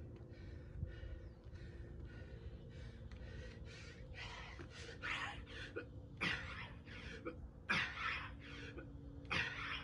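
A man breathing hard during push-ups, with forceful breaths that grow louder from about four seconds in and come roughly every second and a half, in time with the reps.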